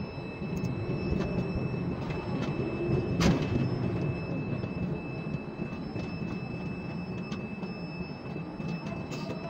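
Ship-to-shore quay crane running as the trolley carries a container out over the ship: a steady mechanical rumble with a thin high steady tone, and one sharp clank about three seconds in.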